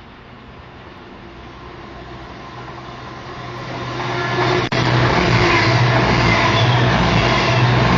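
Freight train hauled by a Class 66 diesel locomotive approaching and passing through the station without stopping. It grows steadily louder over the first four or five seconds, then stays loud with a low engine hum under the rail noise.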